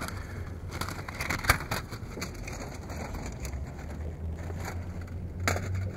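Camp gear being handled: scattered clicks and crinkling, with one sharper click about a second and a half in, over a steady low wind rumble on the microphone.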